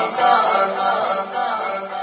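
A man's solo voice singing a Punjabi naat into a microphone, holding drawn-out notes that bend slowly in pitch.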